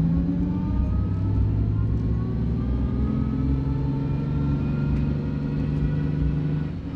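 Nissan 370Z's 3.7-litre VQ V6 pulling steadily at low speed, with a thin gear whine from the differential that climbs slowly in pitch; the diff sounds straight-cut. The engine note drops just before the end.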